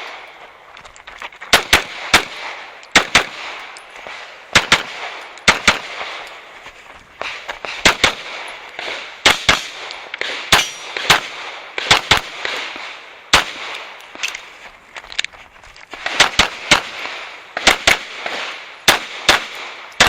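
Pistol fired through an IPSC stage: many sharp shots, mostly in quick pairs, with pauses of about a second or more between some groups. The shots come faster near the end.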